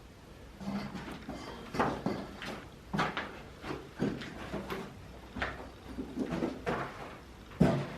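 Irregular knocks, clatters and scrapes, a few each second, with one sharper knock near the end.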